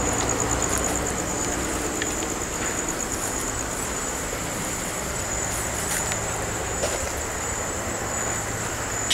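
Crickets chirping in a steady, high, continuous trill over a low background rumble that fades about a second in.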